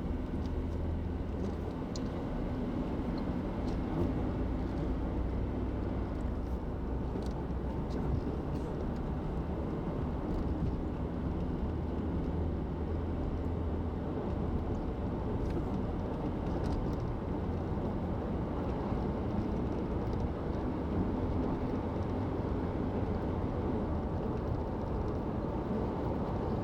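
Steady road and engine noise of a car cruising on the highway, heard from inside the car: a low engine drone under even tyre rumble, with a few faint ticks.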